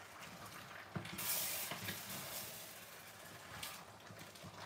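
Wooden spoon stirring chicken curry in a stainless steel pot, with a low sizzle from the pot and a single knock about a second in.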